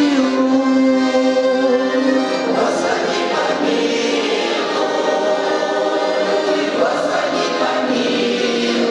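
Choir singing a song with musical accompaniment, in long held notes.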